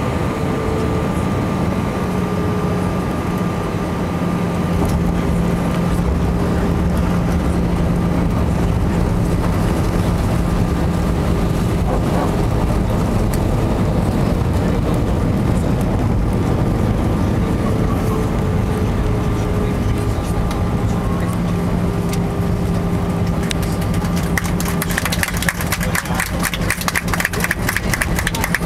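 Airbus airliner cabin noise on landing: a steady engine hum and rush with several whining tones that drift slightly in pitch. A fast rattling begins near the end.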